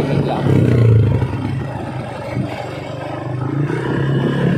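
Honda Click 150 scooter's single-cylinder four-stroke engine running through an MT8 aftermarket exhaust and being revved lightly. The exhaust note swells about a second in, falls back toward idle, then rises again near the end.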